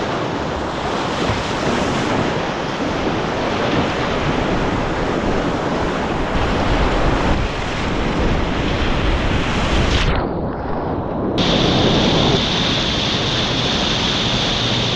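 Rushing whitewater of a river rapid, a steady loud churn with wind buffeting the microphone. About ten seconds in the sound turns dull for a second or so before the full rush returns.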